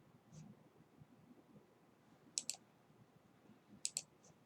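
Computer mouse button clicking: two quick double-clicks, one about two and a half seconds in and one about a second and a half later.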